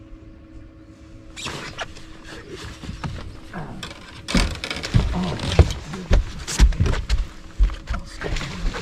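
A fish being landed at the side of a bass boat: splashing, then from about four seconds in a run of loud, irregular thumps and knocks as the fish thrashes and is handled against the boat.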